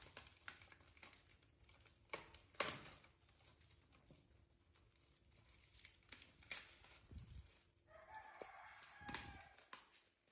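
Quiet with scattered clicks and rustling, the sharpest a little over two seconds in, and a short animal call near the end.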